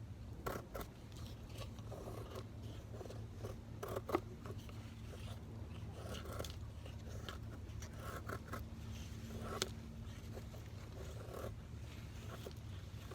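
Short scraping strokes, repeated irregularly, with two sharp clicks, one about four seconds in and one about nine and a half seconds in.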